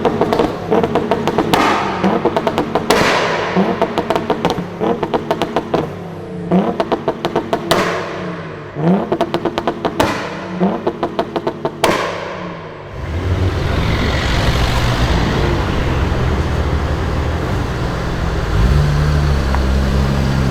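Audi RS4 B5's twin-turbo 2.7-litre V6 revved in repeated sharp blips, each followed by a rapid crackle of pops and bangs from the exhaust as the revs fall. About two-thirds of the way through it gives way to a steady, low engine rumble.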